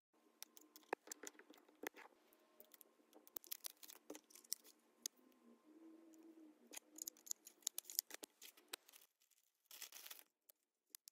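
Cardboard and plastic packaging of an Apple Pencil being handled during unboxing: light clicks, taps and rustles as the box and inner tray are opened and the pencil is taken out. A short crinkle of plastic wrapping comes near the end.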